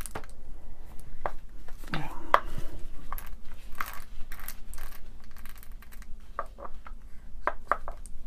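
Gear train in the gearbox of a vintage Fein ASG 658 power tapper turned by hand, giving a run of small irregular clicks and crackles. The owner puts the odd sound down to old grease packed around the gears.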